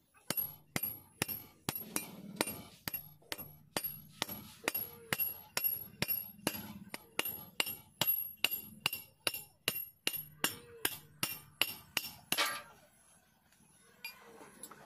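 Hand-forged meat cleaver chopping repeatedly into a rod held on a steel block, about two to three chops a second, each with a bright metallic ring. The chopping stops about twelve seconds in.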